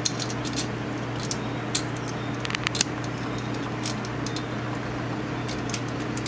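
Light metallic clicks and ticks of a nut, washers and a wire eyelet being handled on an alternator's terminal stud, with a small cluster of louder clicks about two and a half seconds in, over a steady low hum.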